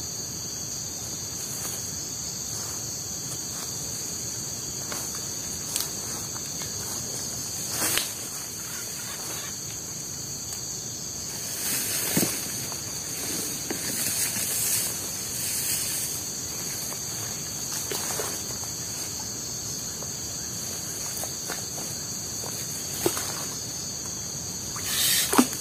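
Steady high-pitched chorus of forest insects, with a few short knocks and clicks scattered through it.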